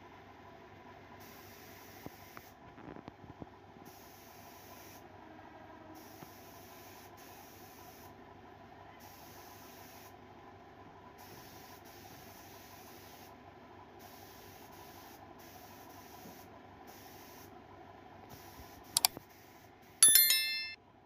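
Faint steady workshop room noise, then near the end a single mouse-click sound and a loud, bright chiming bell of several tones: the click-and-bell sound effect of a YouTube subscribe-button animation.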